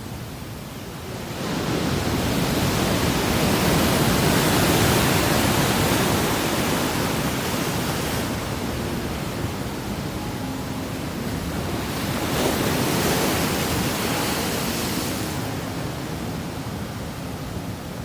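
Pacific Ocean surf: waves breaking and washing up the beach in a steady roar that swells twice, first about two seconds in and again after about twelve seconds, easing between and after.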